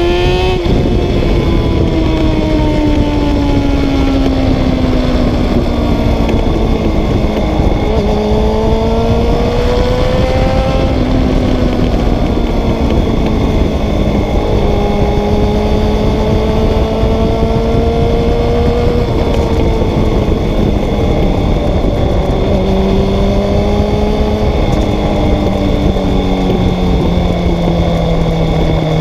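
Honda CBR600 F3's inline-four engine running at motorway speed under a loud rush of wind noise. The engine note eases down, rises for a couple of seconds about eight seconds in, drops back, then holds nearly steady with a slight sag near the end.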